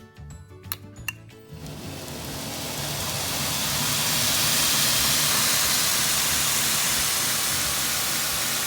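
Brodbeck 2x72 belt grinder starting up: a couple of clicks, then the variable-speed motor and abrasive belt ramp up over a few seconds to a steady running hiss with a low hum. It runs smooth.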